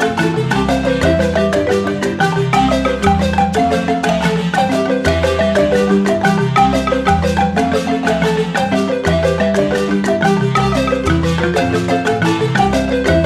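Upbeat background music led by marimba or xylophone-like mallet notes over a steady bass line.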